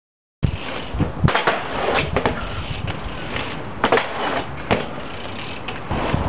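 BMX bike wheels rolling on hard ground with a steady rumble and repeated sharp knocks and clatters; it starts suddenly out of silence.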